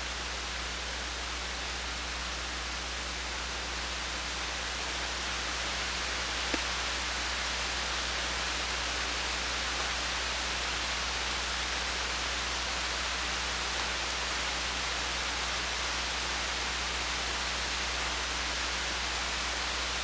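Steady hiss of falling rain, with a low steady hum underneath and one faint click about six and a half seconds in.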